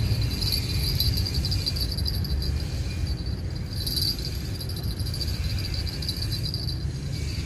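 Insects chirring steadily in a high-pitched band, fading a little twice, over a steady low rumble.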